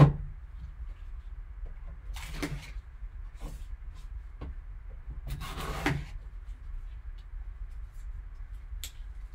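Gloved hands cutting the seal on a cardboard trading-card box with a serrated folding knife and handling the box. A sharp knock comes right at the start, then two longer scraping sounds about two seconds and five to six seconds in, with light clicks and taps between them.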